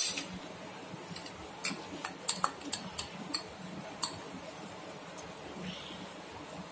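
Steel spoon clinking against a glass bowl and steel plate while scooping shredded cabbage onto bread: a string of light, irregular clinks over the first four seconds, then only soft scraping.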